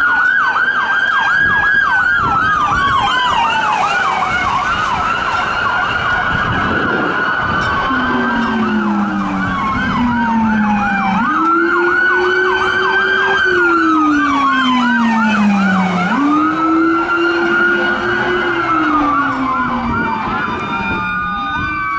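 Electronic sirens of responding fire department SUVs sounding together: a fast yelp runs over a slow wail that rises and falls every few seconds. About eight seconds in, a much deeper wail joins them, rising and falling in the same slow way.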